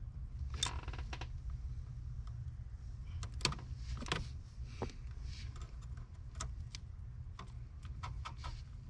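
Sharp clicks and snips of wire cutters cutting the sheathing off a hood release cable, with small handling rattles, over a steady low rumble.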